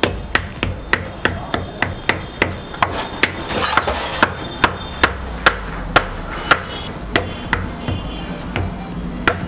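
Jaggery being pounded to break it up: sharp knocks, about three a second, kept up at a steady pace.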